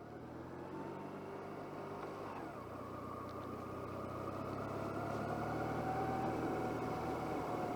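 Motorcycle engine pulling away and accelerating. The revs rise, drop at a gear change about two and a half seconds in, then build again as the sound grows louder.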